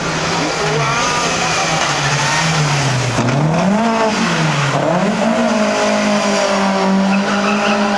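Historic rally car engine running under load, its pitch falling and rising as the revs change, lowest about three seconds in, then holding steady revs for the last few seconds.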